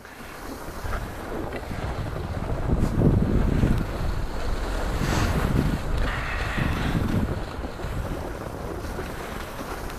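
Wind rushing and buffeting over an action camera's microphone while skiing downhill, with the hiss of skis sliding on packed snow. It swells louder a few seconds in and eases off toward the end.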